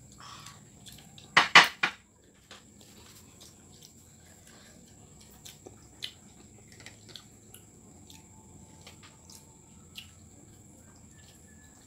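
Tableware knocking on the table: a few loud sharp clatters about one and a half seconds in. After that come scattered small clicks and taps from eating by hand off plastic plates.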